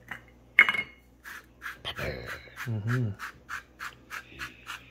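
Hand pepper mill grinding in quick rasping twists, about five strokes a second, after a single sharp click near the start.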